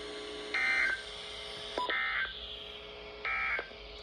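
Three short bursts of Emergency Alert System SAME digital data, the warbling two-tone end-of-message code that closes an alert broadcast, evenly spaced over a faint steady hum.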